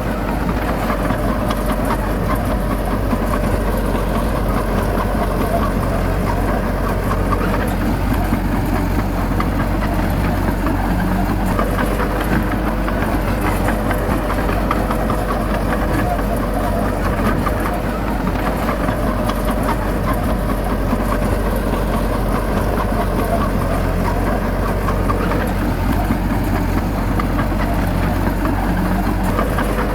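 Heavy diesel engine of earthmoving machinery running steadily at an even pace, with no changes in speed.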